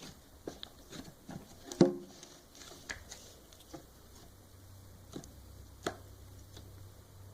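Slime being handled and squished, giving irregular small clicks and pops, with one sharp, louder pop a little under two seconds in.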